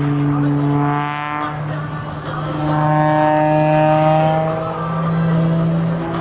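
Single-engine aerobatic plane's piston engine and propeller droning steadily as it manoeuvres and dives with smoke on. The pitch shifts a little as it goes, and a higher whining note comes in about a second in and again midway.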